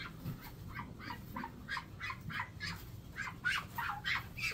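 Backyard poultry in a coop calling in a quick run of short, pitched calls, about three a second, growing louder near the end.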